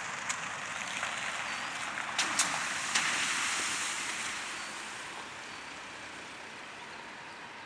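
Distant jet airliner engine noise, a broad rush that swells about three seconds in and then fades away, with a few sharp clicks in the first three seconds.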